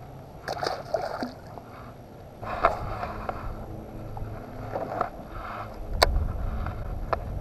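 A small largemouth bass thrown back splashes into the water about half a second in. After that come knocks and a sharp click from handling a baitcasting rod and reel, over a steady low hum.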